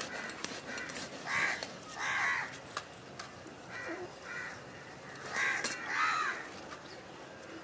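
Crows cawing, a run of short harsh calls with the loudest coming in two pairs, one about a second and a half in and one about five and a half seconds in. Faint clicks from a boti blade scraping scales off a whole fish sound underneath.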